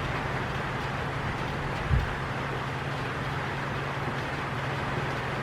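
Steady drone of a running vehicle engine, with one short knock about two seconds in.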